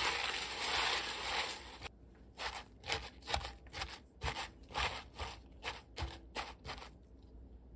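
Gloved hand tossing and mixing fish-sauce-dressed bomdong (spring cabbage) leaves in a glass bowl: a dense, continuous rustle and crunch of leaves for about two seconds, then separate short rustles a couple of times a second as the mixing slows, fading near the end.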